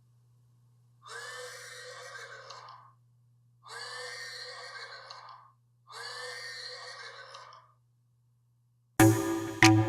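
Horse neighing, a sound-effect recording played three times in a row, each call about two seconds long and breathy. Electronic music comes in loudly near the end.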